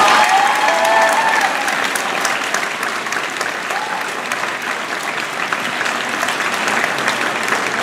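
Audience applauding, with a few whooping cheers in the first second or so.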